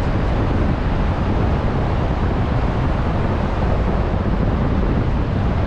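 Strong wind buffeting the microphone, a steady loud rumble heaviest in the low end.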